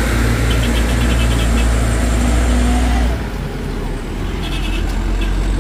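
Heavy diesel truck engine running hard under load while a truck is chain-towed up a steep dirt climb. The engine note eases suddenly about three seconds in.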